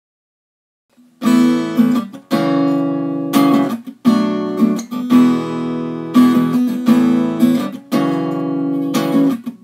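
Acoustic guitar strumming chords, starting after about a second of silence.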